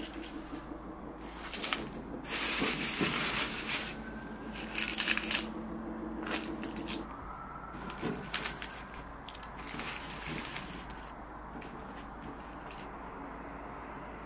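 Irregular rustling and crackling handling noises, in uneven bursts, over a faint steady hum that stops about halfway through.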